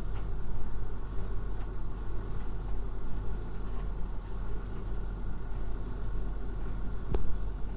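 Siemens Siwatherm TXL 2500 tumble dryer running with a load of towels: a steady low rumble and hum from the motor and turning drum. A single sharp click about seven seconds in.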